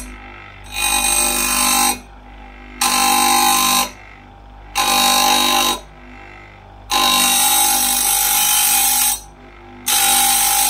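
Electric chainsaw-chain grinder sharpening a chain tooth: the pink abrasive wheel runs with a steady motor hum and is lowered onto the steel tooth about five times. Each touch is a loud, high grinding burst of about a second; the fourth lasts about two seconds.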